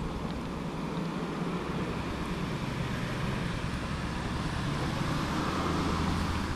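Steady low rumble and hiss of wind buffeting the microphone, with no distinct events.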